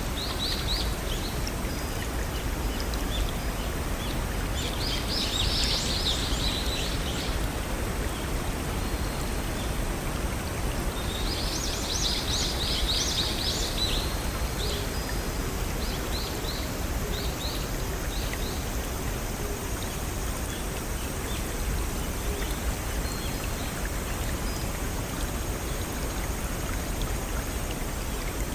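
Small waterfall and brook water flowing steadily. Birds sing over it: two brief bursts of song about five and twelve seconds in, and rows of short, high, repeated chirps between them.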